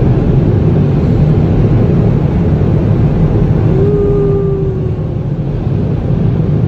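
Automatic car wash dryer blowers blasting air over the vehicle, heard from inside the cabin as a loud, steady rush of air that eases a little after about four seconds. A brief faint whine, falling slightly in pitch, comes about four seconds in.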